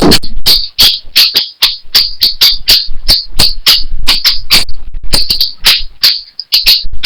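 Cricket chirping in rapid, uneven pulses, about five a second, with a short break about six seconds in.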